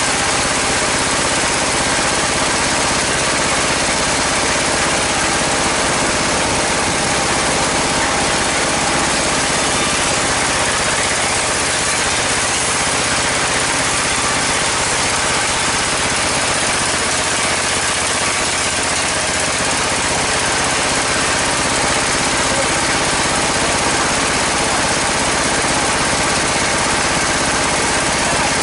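Sawmill band saw and the engine that drives it running steadily, with an even mechanical noise and no breaks.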